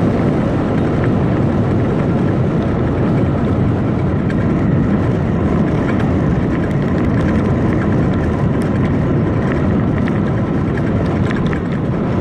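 Wind rushing over the handlebar-mounted microphone and tyre noise on asphalt from an electric bike riding at around 40 km/h, with a faint steady whine from its 1000 W motor.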